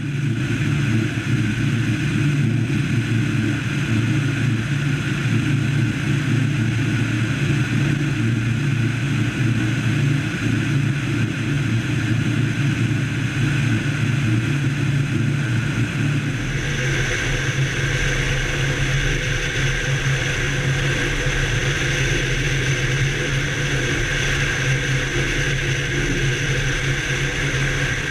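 Piper PA-28-161 Warrior II's four-cylinder Lycoming engine and propeller droning steadily in flight, mixed with the rush of air, heard from outside the cabin. About two-thirds of the way through the tone of the drone shifts.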